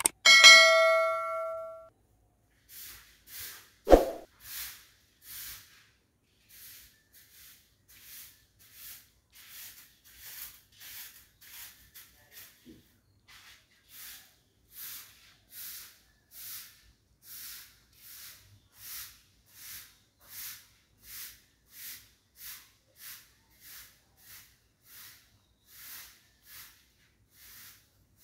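A bell chime rings out at the start, and a sharp click follows about four seconds in. Then comes a cat licking another cat's fur: soft, regular licking strokes, a little over one a second, that carry on steadily.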